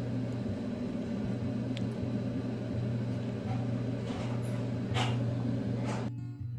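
A steady low hum in the kitchen, with a few light clicks and taps as cauliflower florets and a silicone pastry brush are handled on an aluminium baking tray. About six seconds in, the hum cuts off and strummed acoustic guitar music starts.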